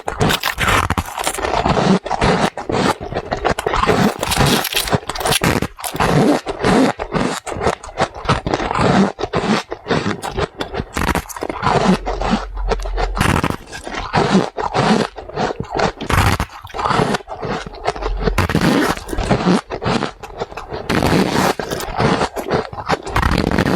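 Ice being chewed close to the microphone: continuous crunching and squeaking, one bite-crunch after another in quick succession.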